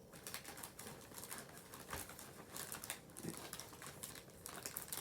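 Faint crinkling and ticking of packaging being handled: a series of small, irregular clicks and crackles.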